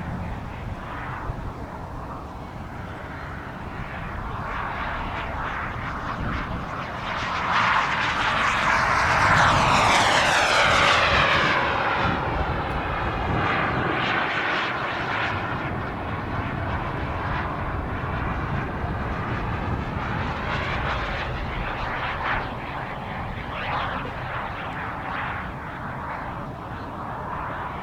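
Hummingbird RC model jet's small turbine engine whining and rushing in flight, swelling as the jet passes close about a third of the way in, with the pitch sweeping, then easing off as it flies away. Low wind rumble sits beneath.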